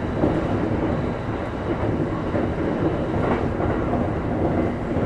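Electric commuter train running along the track, heard from the driver's cab: a steady rumble of wheels on rail with a few faint knocks.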